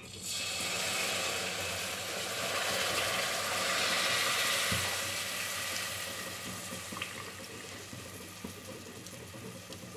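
Tamarind juice poured into a steel pot of hot spiced oil and sambar powder, sizzling hard as it hits. The sizzle swells over the first few seconds, then slowly dies down as the liquid settles to a simmer.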